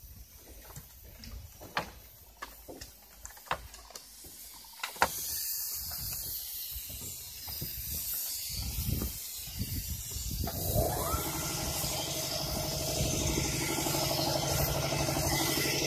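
Polyurethane spray foam machine at work. A few scattered clicks and knocks come first. About five seconds in, a steady high hiss of spraying starts. About ten seconds in, a motor starts with a rising whine and keeps running under the hiss.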